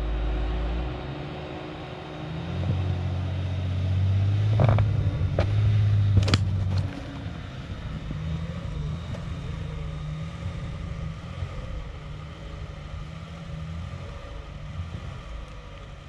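Front-wheel-drive Ram ProMaster van's engine pulling the van through deep snow. It works hardest for the first seven seconds or so, with three sharp knocks about halfway through, then runs lower and fades as the van moves away.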